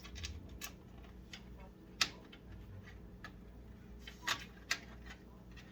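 Scattered light clicks and taps of PC power cables and connectors being pushed and tucked against the computer case, with sharper clicks about two seconds in and twice more later on, over a low steady hum.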